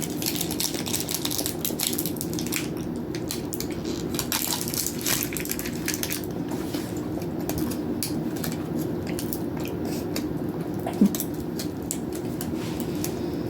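Rapid, irregular crackling and crunching close to the microphone over a steady low hum, with one sharp knock about eleven seconds in.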